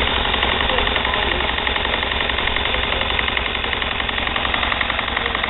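Several small model stationary steam engines running together, giving a fast, steady mechanical ticking and chuffing beat.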